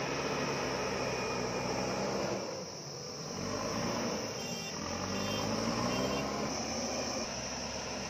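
JCB backhoe loader's diesel engine running under load as its front bucket pushes soil, the engine pitch rising and falling with the throttle, with a brief drop in loudness about two and a half seconds in.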